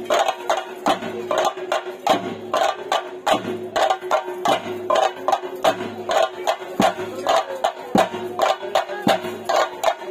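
Theyyam ritual percussion: chenda drums beaten in a fast, even rhythm of sharp strikes, about four to five a second, over a steady held tone.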